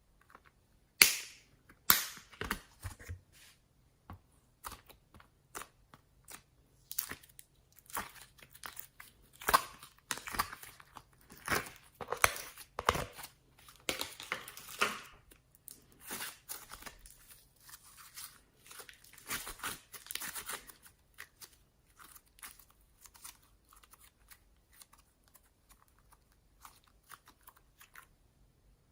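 Homemade slime being handled: kneaded, pressed and stretched, with irregular sticky crackles, clicks and pops. The sounds are busiest over the first twenty seconds and thin to sparse clicks near the end.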